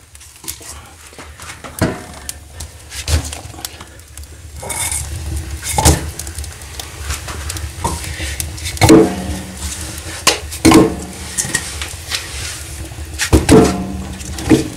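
Split firewood being loaded into a wood-fired sauna stove's steel firebox: irregular knocks and clunks of wood against metal, some with a short metallic ring, over a steady low rumble.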